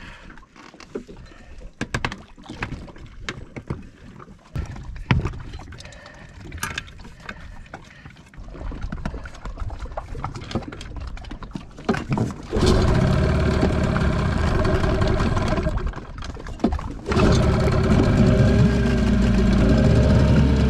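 Knocks and clatter from handling a Yamaha Enduro two-stroke outboard, then the motor is pull-started. It catches about two-thirds of the way in and runs for a few seconds, then cuts out. On the next pull it catches again and keeps running steadily.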